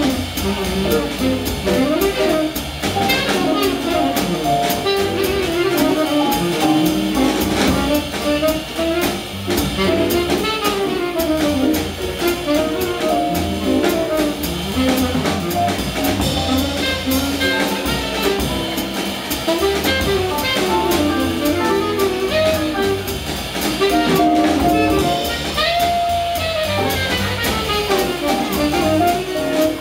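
Live small-group jazz: a tenor saxophone plays a quick, winding melodic line over a drum kit with steady cymbal strokes and a low bass line underneath.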